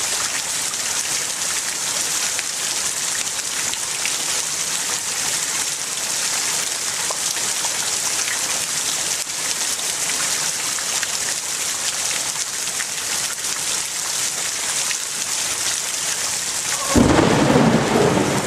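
Heavy rain falling steadily, a dense even hiss. About a second and a half before the end a sudden, louder rumble of thunder breaks in over it.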